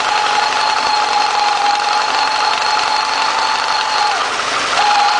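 VAZ 2109 idling with the clutch released and the rebuilt five-speed manual gearbox giving a steady whine over the engine noise. The whine dips and breaks off about four seconds in, then returns near the end. It is an unexplained noise after the rebuild, which forum posters suggest may come from the input shaft.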